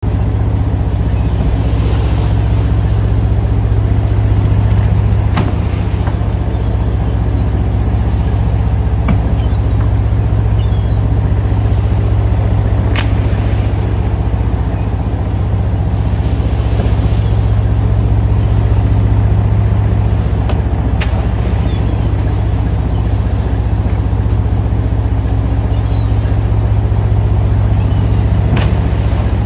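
Lobster boat's engine running steadily underway, a low drone over the rush of water along the hull. A few sharp knocks sound on deck now and then, the last just as a trap goes overboard near the end.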